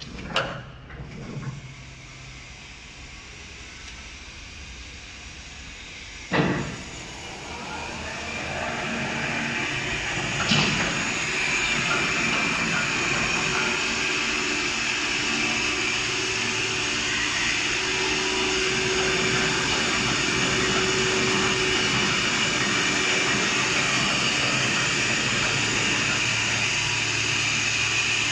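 Automatic napkin tissue folding machine (XY-OQ-7000A) starting up: a few knocks near the start and a loud clunk about six seconds in, then the machine runs up over several seconds, with another clunk about ten seconds in, to a steady mechanical running noise with a constant whine.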